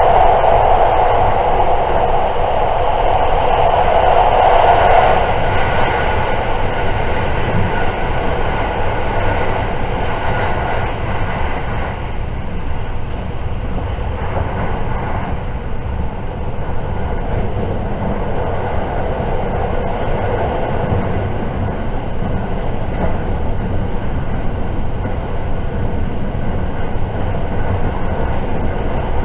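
Running noise heard inside a JR 681 series limited-express electric train travelling at speed: a steady rumble, louder for the first five seconds or so, then settling to an even level.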